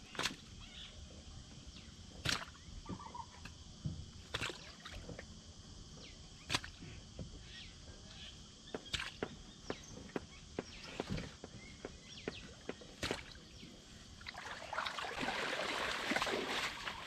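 Fish being handled in a wooden canoe hull and bagged: sharp knocks about every two seconds, seven in all. In the last few seconds this gives way to the splashing of feet wading through shallow water, the loudest part.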